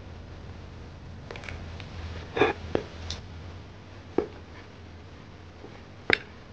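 Scattered sharp metallic clicks and taps as an Allen key and small screws are worked into aluminium plates and the parts are handled during assembly, about half a dozen in all, the loudest about two and a half seconds in and another near the end, over a low steady hum.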